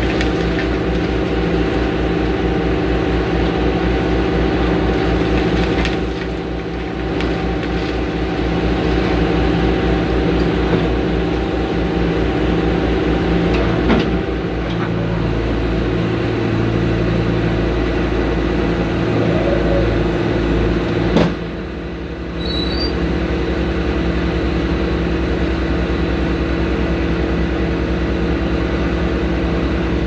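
Bobcat skid-steer loaders' diesel engines running steadily. The level dips briefly about six seconds in and again just after twenty seconds, with a short knock at about fourteen and twenty-one seconds.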